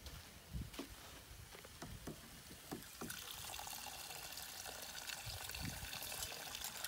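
Water running from the spigot of a plastic water jug into a metal pot, starting about three seconds in and running steadily. A few light knocks come before it.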